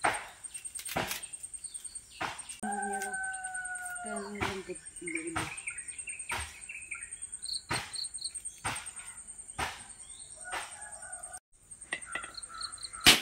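Coconut husk being prised off on a metal husking spike: a run of sharp cracks and tearing of the fibrous husk. A dog howls for about three seconds a few seconds in, birds chirp, and a steady insect buzz sits high underneath. Near the end, one loud sharp knock as a machete strikes the coconut.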